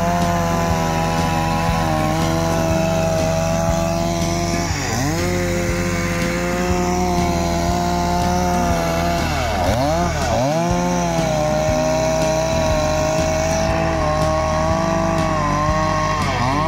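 Chainsaw running at high throttle, its pitch dipping sharply and recovering several times as it bogs down cutting into wood.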